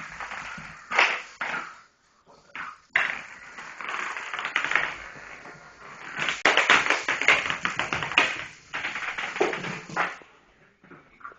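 A puppy playing with a ball: bursts of quick taps, bounces and scuffling, with short pauses about two seconds in and near the end.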